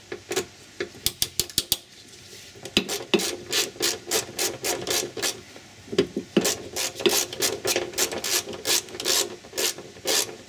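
A socket ratchet wrench clicking as the bracket's mounting bolts are run down to lightly tight, before final torquing. A quick flurry of clicks in the first two seconds, then about three clicks a second as the ratchet is worked back and forth.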